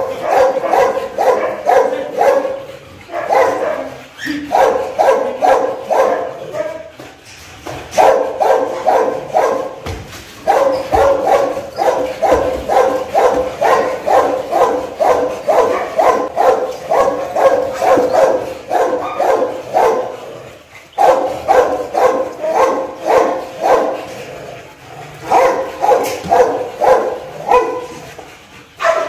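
Pit bull puppy barking over and over in long runs of quick, high barks, about three a second, with short breaks between the runs: excited play barking.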